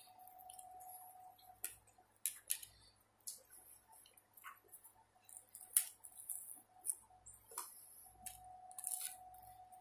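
Close-up eating sounds: chewing a mouthful and tearing a piece of toasted garlic bread, heard as scattered small clicks and crackles. A faint steady hum runs underneath.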